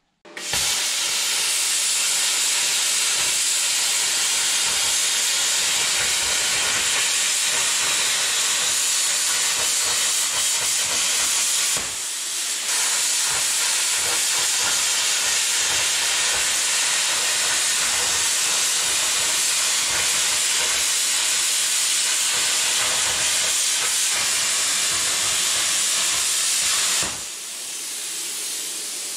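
Plasma cutter cutting sheet steel: a loud, steady hiss of the cutting arc and air jet, broken once briefly partway through, then dropping to a softer hiss of air near the end as the cut stops.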